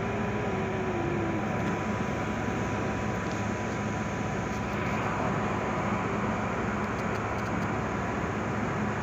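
Steady low drone of a vessel's diesel engines and machinery. A short whine rises and falls in the first second or so, and a thin steady tone stops about halfway through.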